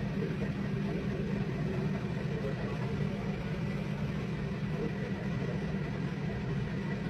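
A steady low motor hum, unbroken throughout, with a thin steady high whine above it.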